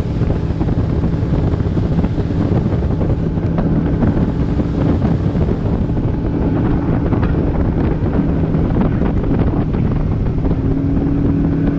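Bass boat's outboard motor running steadily at speed, with wind buffeting the microphone.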